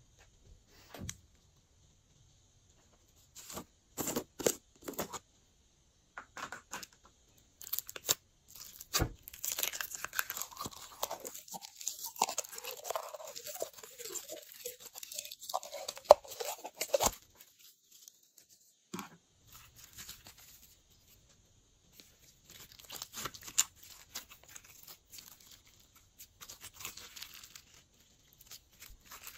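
Glossy slime being squeezed, stretched and mixed by hand, giving short wet clicks and pops. A longer run of dense crackling comes in the middle, with quiet gaps between handfuls.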